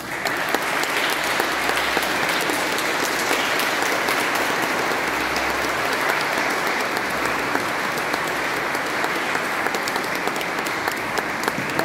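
A congregation applauding in a church: dense, steady clapping that begins as the speech ends.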